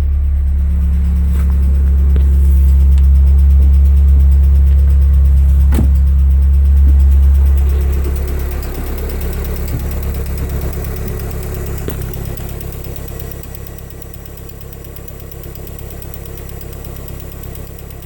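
Lada Kalina 1.4 16-valve engine idling with a strange knock that appeared after a morning start; the owner cannot place it and wonders whether it comes from the balance shafts. The engine hum drops in level about eight seconds in, with one sharp click near six seconds.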